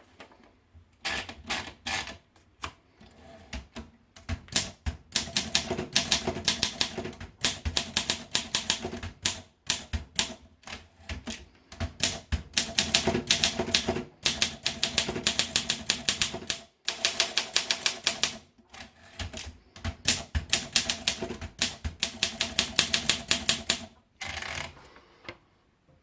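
Olympia SM2 manual portable typewriter being typed on: quick runs of sharp key and typebar clacks in bursts of a few seconds with short pauses between, ending with a short rasping sound about a second long.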